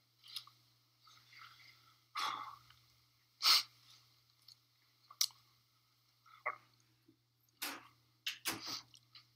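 A man's sniffs, sharp breaths and lip and mouth clicks close to a microphone, short and a second or two apart, as he fights back tears; the loudest, a sharp intake, comes about three and a half seconds in. A faint steady electrical hum lies underneath.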